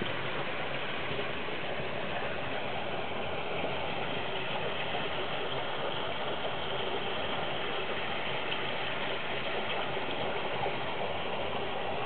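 Steady rushing of water in a fish holding tank, an even hiss with no distinct splashes or knocks.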